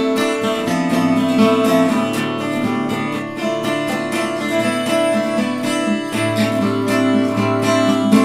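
Instrumental music led by an acoustic guitar, with plucked and strummed notes at a steady pace.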